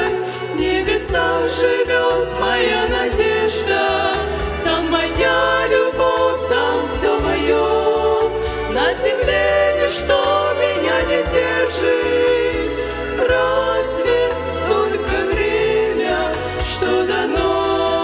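Several women's voices singing a Christian hymn into microphones, over instrumental accompaniment.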